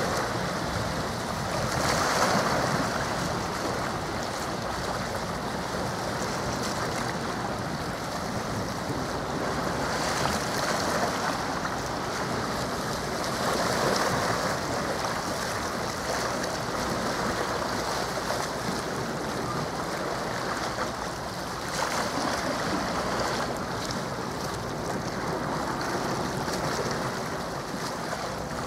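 Sea water washing against the shore, swelling and easing every few seconds over a steady rush of wind on the microphone.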